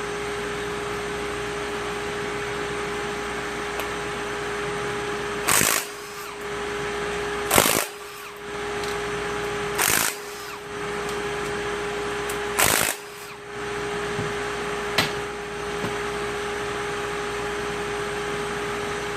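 Four short bursts of a power wrench spinning off the 14 mm connecting-rod cap nuts of a Mazda 2.0 engine, a couple of seconds apart, with a few lighter clicks after them. A steady fan hum runs underneath.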